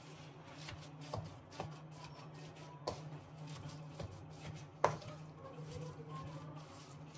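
Wooden spatula stirring a thick, crumbly mixture in a stainless steel pan, with several sharp knocks of the spatula against the pan, the loudest about five seconds in. A steady low hum runs underneath.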